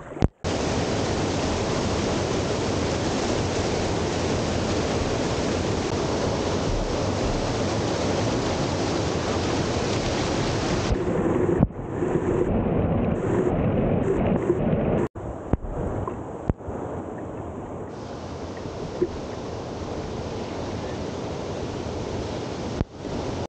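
Loud, steady rush of whitewater and splashing at a weir as kayaks run through it, heard close up. The sound cuts off abruptly and returns several times.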